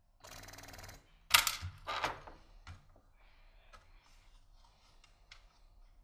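Handling noise from work on a power-supply circuit board and its metal chassis. A short rattling buzz is followed by three sharp clicks about two-thirds of a second apart, the first the loudest, then a few faint ticks.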